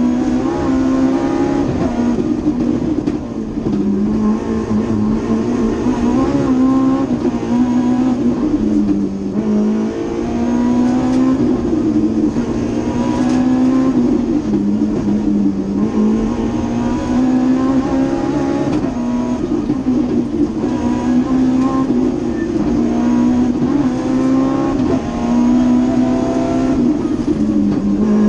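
BMW M3 rally car's engine heard from inside the cabin at full stage pace. It revs up repeatedly and drops in pitch at each gear change or lift for a corner.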